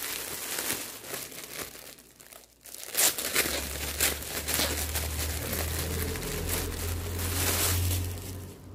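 Clear plastic bag crinkling and crackling as a t-shirt is pulled out of it by hand. The crinkling eases off briefly about two seconds in, then comes back with sharp crackles.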